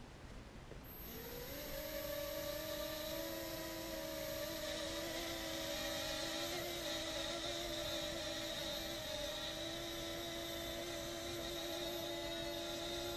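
Small toy quadcopter's electric motors and propellers spinning up about a second in with a quick rising whine, then running with a steady high-pitched whine that wavers slightly as the drone lifts off the ground near the end.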